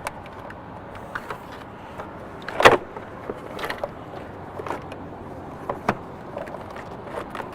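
Plastic stock airbox being lifted and worked free of its rear push-prong mounts, giving scattered clicks and knocks with one louder knock about two and a half seconds in.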